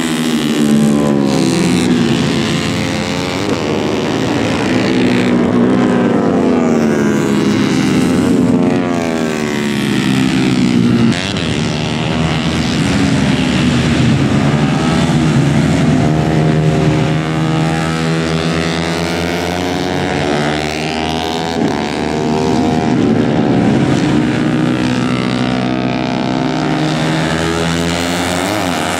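150cc four-stroke underbone race motorcycles running hard on track, several engines at once, their high-revving notes rising and falling repeatedly as the bikes slow for corners and accelerate away.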